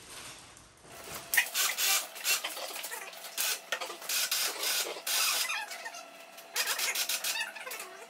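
Electric hoist running as it lifts a sawmill head, with a steady motor hum under irregular metallic rattling and scraping. It starts about a second in.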